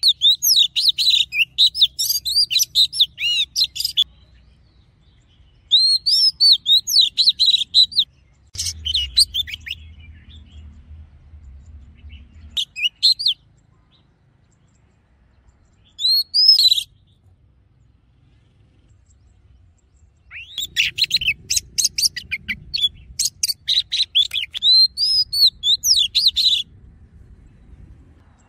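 Oriental magpie-robin singing: runs of fast, varied whistles and chirps a few seconds long, broken by pauses of a few seconds, with the longest run of song in the last third.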